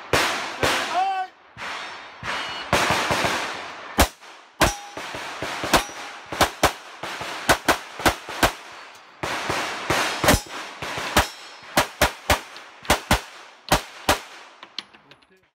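A competition pistol with a red-dot sight, built by Spencer Race Guns, fired rapidly through a stage: about thirty shots, mostly in quick pairs with short pauses between strings. A few shots are followed by a brief metallic ring from hits on steel targets.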